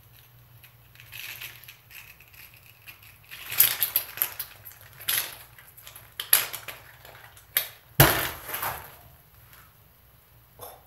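Pressurised, over-fermented guacamole hissing and sputtering out of a glass jar in a series of bursts as the metal screw lid is loosened, the carbonation from fermentation forcing the mash out around the lid. The strongest burst starts sharply about eight seconds in and trails off.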